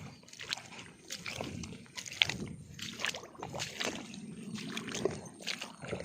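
Irregular sloshing and splashing, as of someone wading through a flooded rice paddy, with one sharper splash about two seconds in.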